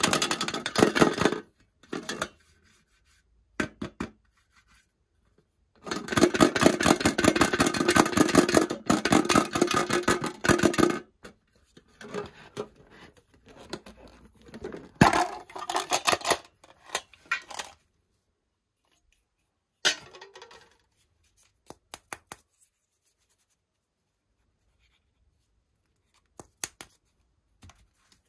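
Hands working at the lid of a metal Celebrations chocolate tin to open it: bursts of rapid crackling, scraping and tapping on the tin, the longest lasting about five seconds, with quiet gaps between.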